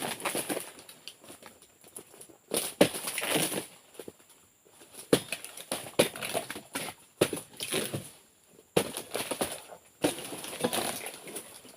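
Oil palm pruning chisel striking and cutting into frond bases, in about six bouts of sharp hits, each followed by a second or so of rustling and crashing as the fronds give way.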